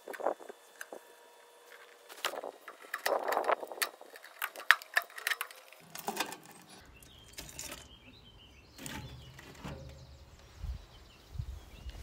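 Sharp metallic clicks, knocks and scrapes as screws are undone with a hex key and the sheet-metal cover of an electric poultry scalder's control box is worked loose. A low rumble comes in about halfway through.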